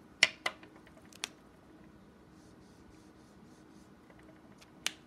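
A few sharp plastic clicks from handling Copic alcohol markers: two close together near the start, one about a second in, one near the end. Between them, faint quick strokes of a marker nib scratching across cardstock.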